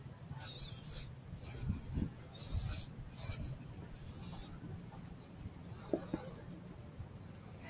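Footsteps on sand, a short scraping step roughly once a second.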